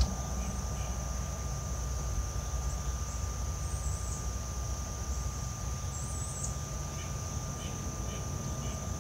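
Steady outdoor insect drone, a constant high-pitched buzz, over a low steady rumble, with a few faint chirps and small ticks along the way.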